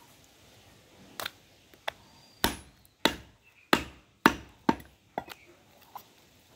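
Heavy cleaver chopping mutton ribs on a wooden log chopping block: a run of about eight sharp chops, roughly one every half second, the heaviest in the middle.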